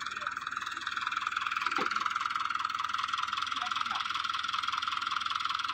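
A dense chorus of frogs calling, a fast trill held at one pitch.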